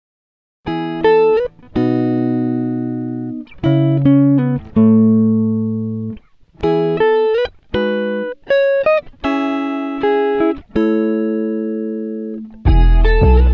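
Background instrumental music of plucked-string notes and chords, each struck sharply and ringing away. It comes in about half a second in after a brief silence.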